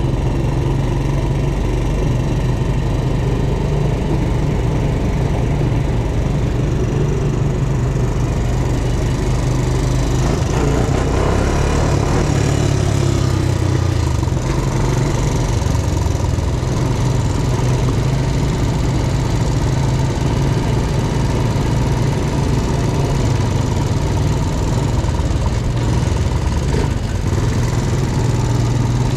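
ATV engine running as the quad is ridden: a steady low drone.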